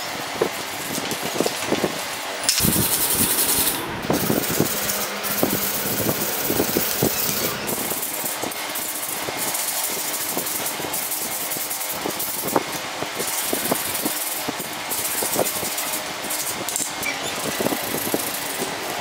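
Old motorcycle parts being hand-sanded on a tile floor: repeated rasping scrubbing strokes on metal, with scattered clicks and clinks of the parts being handled. There is a louder, harsher stretch about three seconds in.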